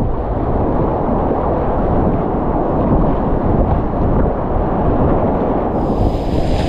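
Wind rumbling steadily on the microphone. About six seconds in, the higher hiss of rushing whitewater comes in over it.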